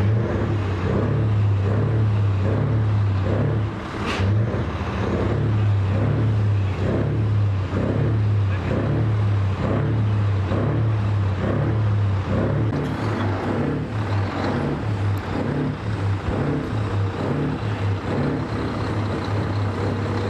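A large engine running steadily with a low hum, with a faint pulsing about twice a second.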